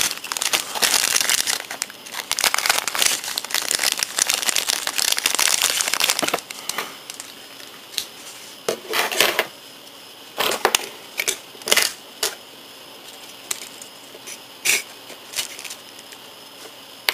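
A clear plastic bag crinkling as hands handle and open it, dense and continuous for about the first six seconds. After that come scattered short crinkles and clicks as small plastic model parts are handled.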